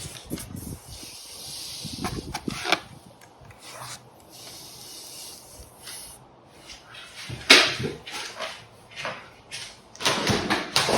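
Cardboard bike box and packing material being handled and pulled apart: irregular rubbing and scraping with scattered clicks and knocks, the sharpest knock about seven and a half seconds in.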